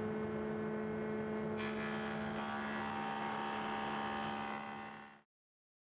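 Router in a router table running at speed with a steady whine and hum; about a second and a half in, a board starts feeding through the cutter and a hissing cut joins the motor sound. The sound fades out near the end.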